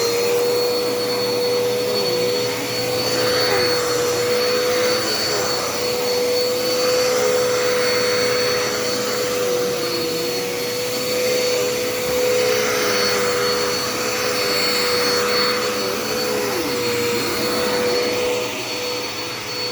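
Dirt Devil Endura Reach bagless upright vacuum cleaner running at full speed. It gives a steady motor whine, and a rushing of air swells and fades every few seconds as it is worked back and forth.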